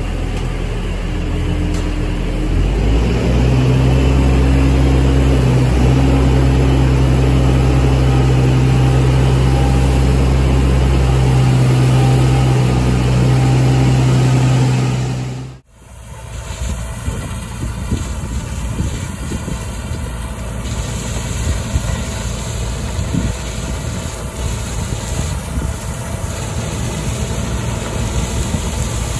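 Tractor engine running steadily with a deep hum, growing louder about three seconds in, while a tipping trailer unloads oilseed rape. It cuts off suddenly about halfway through, giving way to the even running noise of a Case IH 2388 Axial Flow combine harvester at work in the field.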